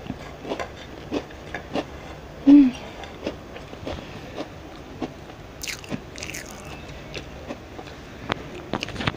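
Close-miked crunching and chewing of crisp cookies: irregular sharp crunches, a few a second, with a short vocal 'mm' sound about two and a half seconds in.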